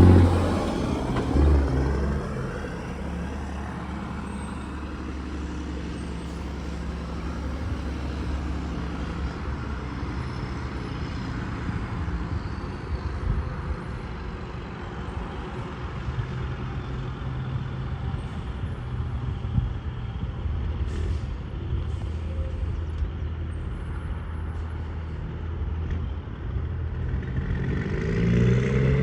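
Road traffic going by: a truck's engine fades away in the first couple of seconds, leaving a steady drone of engines and tyre rumble, and another vehicle grows louder near the end.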